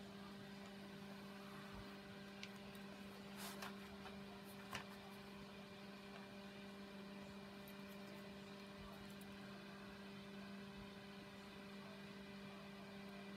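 Near silence with a steady electrical hum and a few faint light ticks in the first few seconds.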